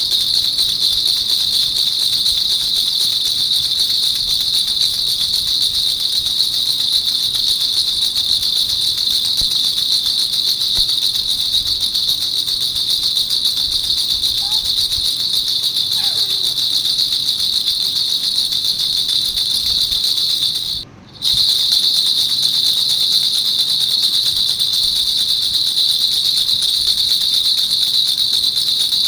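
Baby rattle (jhunjhuna) shaken without pause, a steady high jingling, with a brief break about 21 seconds in.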